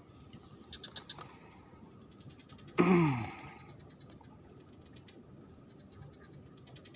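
A man's short sigh-like vocal sound, falling in pitch, about three seconds in. Under it, faint rapid chirping calls keep going in trains.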